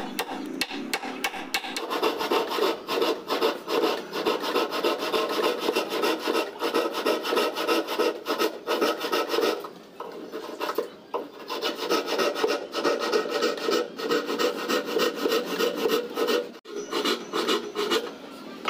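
Plywood being rubbed down by hand: a long run of quick rasping strokes, with a few short pauses.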